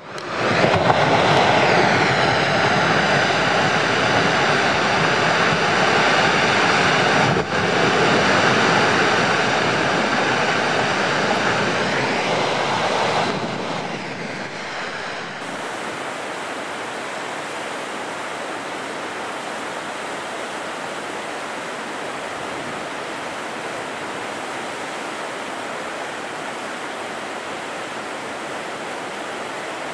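Russell Glacier's ice front calving: a long, loud roar of ice breaking and crashing into the meltwater lake. It eases after about thirteen seconds into the steady wash of churned water and waves.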